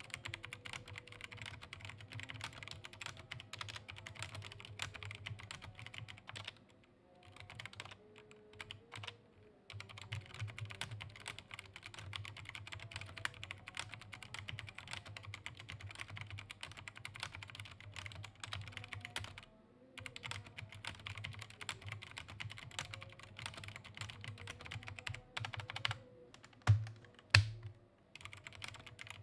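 Typing test on a Rexus MX9 hot-swap mechanical keyboard with brown switches, fitted with its white add-on top case: a fast, continuous clatter of key presses with a few brief pauses and two louder knocks near the end.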